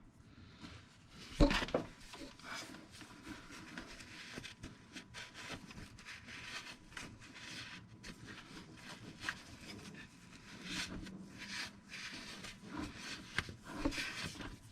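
A rag wiping and scrubbing at spilled engine oil around an oil filter mount, in a run of quick irregular rubbing strokes, with a single sharp knock about a second and a half in.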